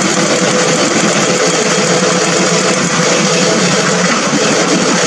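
Diesel engine of a Komatsu PC210 hydraulic excavator running steadily, with a faint steady hum over a dense, even noise.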